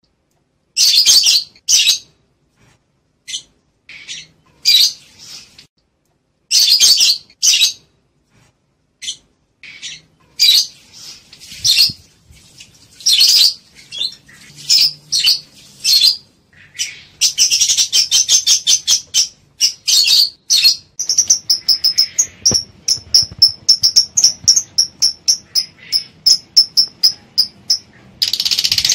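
Lovebirds chattering in irregular bursts of high-pitched chirps with short gaps between them, turning a little past two-thirds through into a fast, even run of short chirps, several a second. These are the calls of lovebirds in breeding condition, ready to mate.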